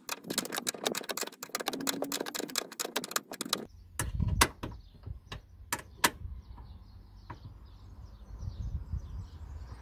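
A 10 mm spanner tightens the nut on a ground-wire ring terminal against the car body, a fast run of metal clicking for the first three and a half seconds. A few separate sharp clicks follow as the wrench is repositioned and the wires are handled.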